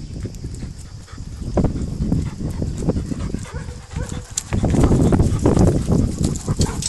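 Weimaraner dogs and puppies scuffling and moving about close by, with irregular thuds and knocks that grow louder about four and a half seconds in.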